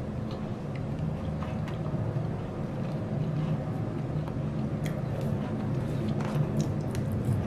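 Airplane passing overhead, heard as a steady low drone that grows slightly louder, with faint chewing clicks from someone eating.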